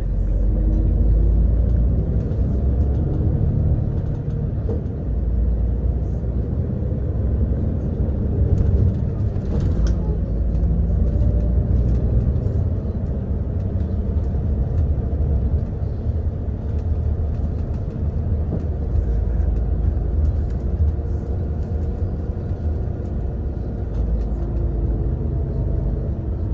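Steady low rumble of a moving road vehicle, running on without a break.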